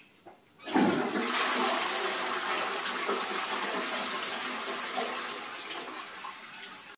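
A rush of water starts suddenly about a second in and slowly fades away.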